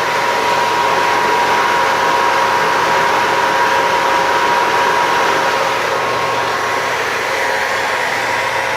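2006 Detroit Diesel MTU 130 kW natural gas generator running steadily, with a steady whine heard through the engine noise.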